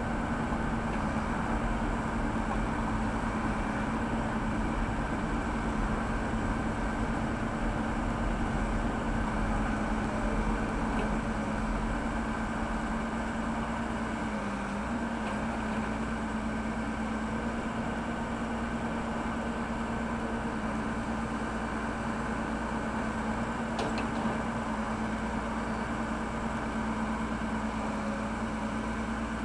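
Backhoe loader's diesel engine running steadily, its pitch dipping briefly about halfway through.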